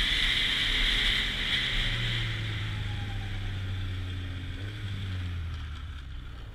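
Snowmobile running along a packed snow trail, heard from the rider's helmet camera: a steady hiss over the engine fades after about two seconds as the sled slows, leaving a low engine hum.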